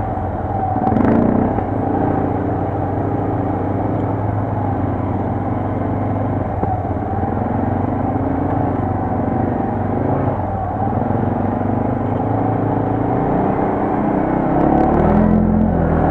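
Quad bike (ATV) engine running under way, its pitch rising and falling repeatedly as the throttle changes.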